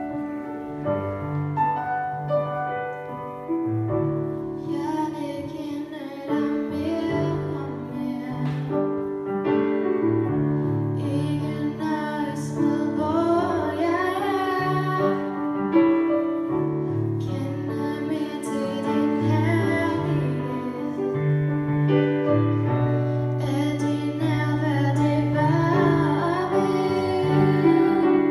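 A young girl sings a Danish song solo into a microphone over piano accompaniment. The piano plays alone at first, and her voice comes in about four seconds in.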